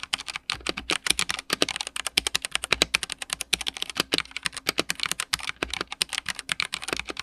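Fast, continuous typing on a Redragon K631 Castor 65% mechanical keyboard: a rapid stream of sharp key clicks, several strokes a second.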